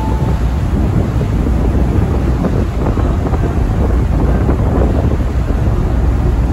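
Wind buffeting the microphone over the steady low rumble of a car ferry's engines as the ship pulls away from its berth.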